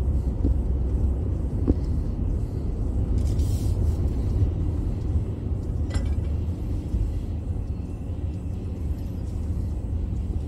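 Pickup truck's engine and tyres heard from inside the cab as it drives slowly: a steady low rumble, with a single click about six seconds in.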